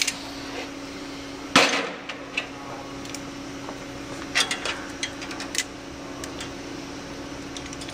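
Metal hand tools clacking and clicking as locking pliers (Vise-Grips) are worked on steel wire strapping an exhaust bracket: one sharp, loud clack about one and a half seconds in, then a few lighter clicks around four to five seconds in, over a steady low hum.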